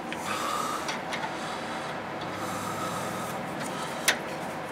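Gloved hands handling and rubbing against the steering linkage parts, a steady scraping and rustling, with one sharp click about four seconds in.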